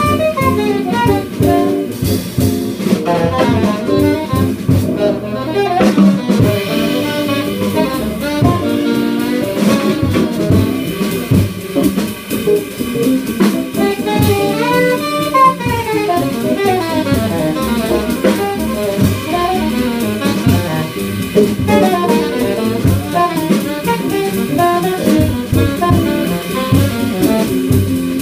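Live small-group jazz: a saxophone plays the lead line over double bass, guitar, piano and drum kit.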